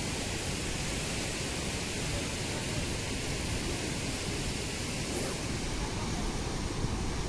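Steady rushing noise of sea surf breaking along a rocky shore.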